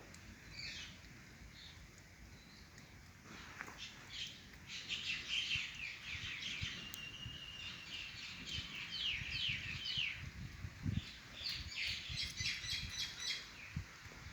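Small birds chirping in quick runs of short, high notes, starting about four seconds in and continuing in bursts.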